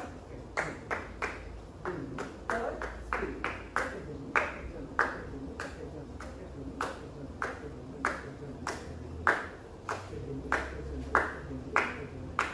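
Sharp, ringing strikes beating time at roughly two a second: the rhythm being kept for a basic Indian dance exercise.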